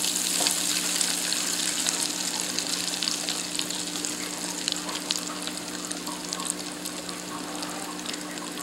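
Hot oil in an electric deep fryer sizzling and crackling hard around a basket of frozen breaded potato-and-cheese balls just lowered in, easing off a little over the seconds. A steady low hum runs underneath.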